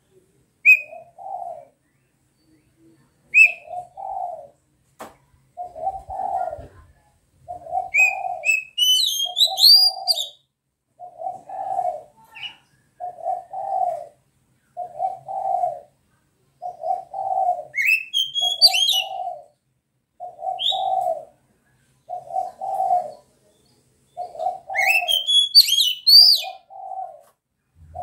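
Oriental magpie-robin (kacer) giving short rising whistles and chirp phrases at intervals, with a flurry of song about 8 seconds in and again near the end. Under it a dove coos steadily, about once a second.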